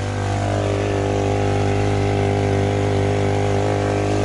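An engine running steadily at one speed: a loud, even hum with a buzzy overtone.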